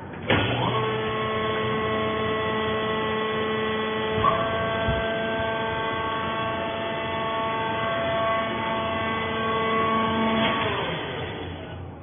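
Hydraulic power pack of a TCM vertical fiber baler: the electric motor and pump spin up, run with a steady hum and whine for about ten seconds, then wind down in pitch near the end.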